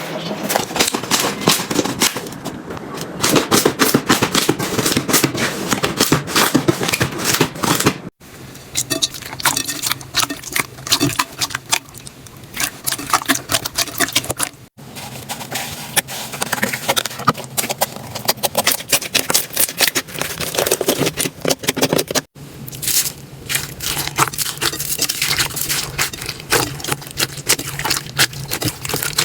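Slime being squeezed and pressed, giving dense crackling and popping clicks. The sound breaks off abruptly three times as one clip cuts to the next.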